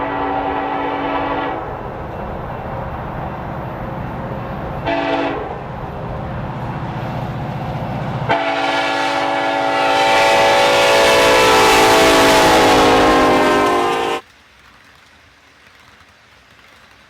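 Diesel locomotive sound effect: the engine running under a horn blast that ends about a second and a half in, a short horn toot about five seconds in, then a long horn blast with a rising hiss that cuts off suddenly about fourteen seconds in, leaving only faint low noise.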